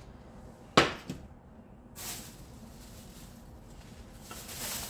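A sharp wooden knock about a second in, with a lighter one just after, as the lid of a wooden salt box is shut; then a plastic bag rustling, louder near the end.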